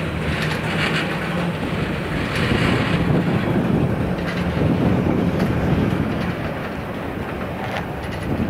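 A train rolling past, with a steady rumble of wheels on rail and occasional wheel clicks.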